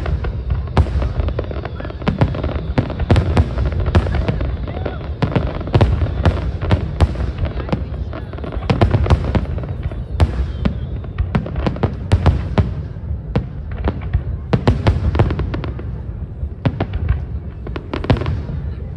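Aerial fireworks display exploding in rapid, continuous succession: many sharp bangs and crackles a second over a steady low rumble.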